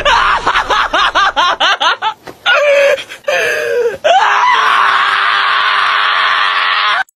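A dog yowling in quick rising-and-falling calls, several a second, for about two seconds, then a few longer sliding calls. From about four seconds in comes a long, harsh, loud scream at one held pitch that cuts off just before the end.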